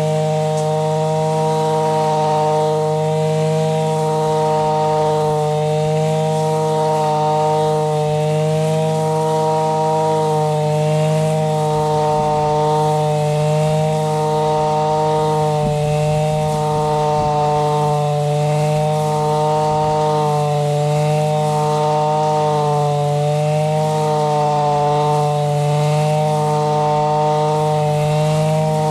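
Zenoah BCZ315 brush cutter's two-stroke engine running steadily at working speed while its grass blade cuts grass, the pitch dipping and recovering slightly now and then.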